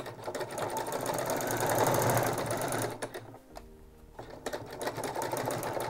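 Electric sewing machine stitching through the waistband seam of a tulle petticoat, with a fast, even run of stitches. It stops about three seconds in and starts stitching again about a second and a half later.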